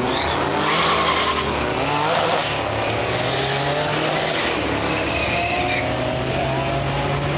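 Two cars launching off a drag strip start line and accelerating hard down the track. One is a 1987 Nissan 300ZX Turbo, its turbocharged 3.0-litre V6 revving up through the gears. The engine note rises over the first couple of seconds and changes about two and a half seconds in.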